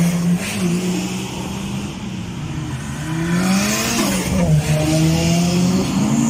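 Cars driving past close by, engines revving: the engine note climbs, drops sharply a little after four seconds in as a car lifts off or changes gear, then climbs again.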